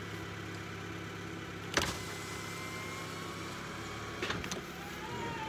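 Honda car's power window motor running, each run starting with a click from the door switch and making a faint whine for about a second and a half, with more clicks a little after four seconds in. The engine idles steadily underneath.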